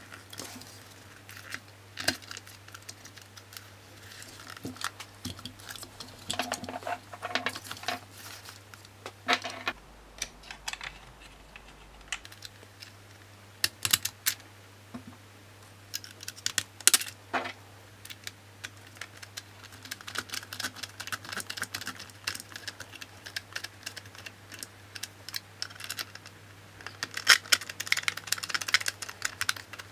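Hard plastic parts of a Dyson V10 cyclone assembly being handled and worked with a screwdriver: scattered clicks and taps, with a run of denser scratchy clicking near the end.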